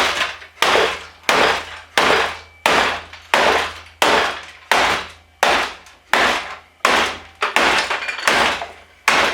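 A hammer beating steadily on a desktop computer, about fourteen hard blows at a regular pace of roughly one and a half a second, each ringing off briefly.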